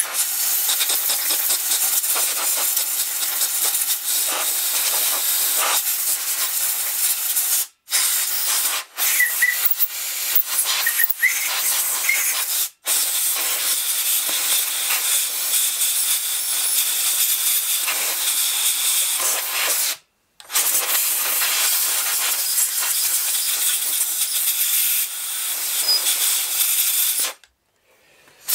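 Compressed-air blow gun hissing in long, loud blasts as it blows caked dust off a petrol RC buggy's carburettor. The air cuts off briefly several times between blasts and stops just before the end.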